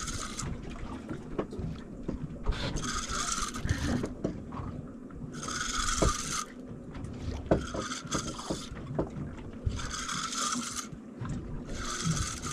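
Spinning fishing reel cranked in bursts of about a second, roughly every two seconds, a whirring gear rasp as line is wound in on a hooked fish. A low steady rumble runs beneath.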